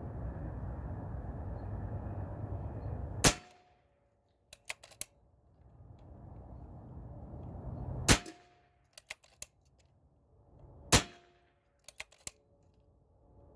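Three shots from a pre-charged pneumatic air rifle, a few seconds apart, each followed about a second later by two or three light clicks of the action being cycled for the next pellet.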